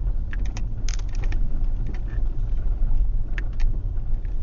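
Ford car driving slowly over a rough, unpaved jungle track: a steady low rumble of engine and tyres, with scattered knocks and rattles as it jolts over the rough ground, a cluster in the first second or so and a couple more past the middle.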